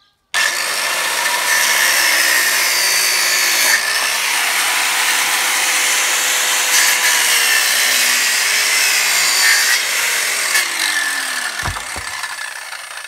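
Electric power saw cutting wood to make formwork stakes, its motor tone sagging and recovering as it bites into the timber. It starts abruptly, runs for about eleven seconds, then is switched off and winds down near the end.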